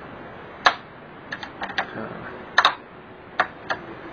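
Plastic latches on a Samsung edge-lit LED TV's white panel frame clicking as they are pried loose with a small screwdriver. It is a string of about nine sharp clicks at irregular spacing, some in quick pairs.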